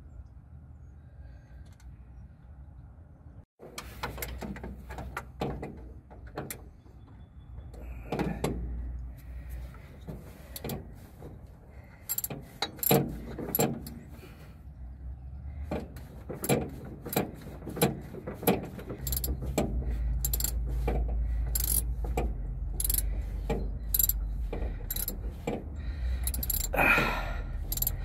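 Irregular metallic clicks, clinks and light knocks of a fuel pump bolt and tools being fumbled against the engine block by hand, as the blind rear bolt is worked into place by feel. A low rumble comes in about two-thirds of the way through.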